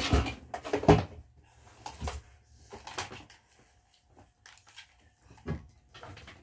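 A bedroom door being handled: several short knocks and bumps, the loudest about a second in, with rustling as things are moved about near it.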